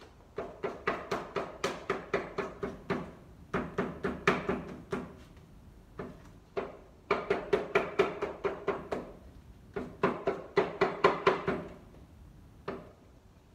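A hammer tapping gasket paper against the edge of a metal plate to cut a gasket to shape. Light, quick taps come about four or five a second in runs of one to two and a half seconds with short pauses, each with a faint metallic ring.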